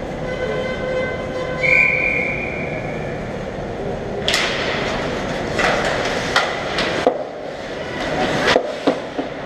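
Ice skates scraping and stopping on the ice, with sharp clacks of sticks and puck, as play crowds the goal from about four seconds in. Before that a steady droning hum with several pitches runs under the rink noise, with a brief higher tone about two seconds in.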